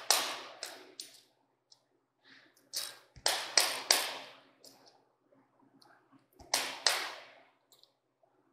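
A steel tape measure being worked against a steel plate: three short bursts of rattling clicks, each quickly dying away, over a faint steady low hum.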